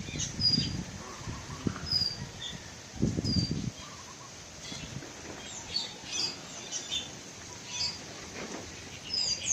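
Starlings calling from a tree: many short high chirps and whistled notes, scattered throughout. Brief low noises near the start and again about three seconds in.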